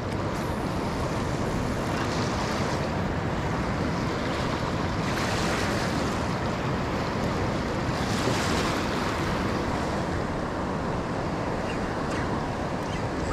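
Steady rush of fast-flowing, choppy river water, with wind buffeting the microphone; the hiss swells briefly about five seconds in and again about eight seconds in.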